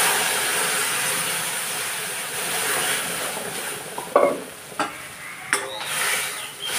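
Tadka for dal: hot oil and spices sizzling loudly in the pan, the sizzle slowly dying down. A few short metal clinks of a cooking utensil come in the second half.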